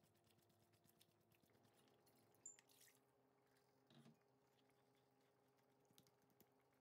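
Near silence: faint steady hum with a few faint clicks.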